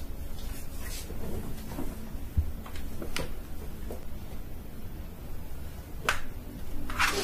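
A few scattered sharp clicks over a low steady hum, the loudest two near the end.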